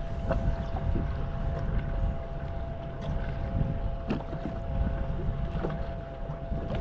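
Wind on the microphone and water washing against a kayak's hull, with a faint steady hum and a few light knocks.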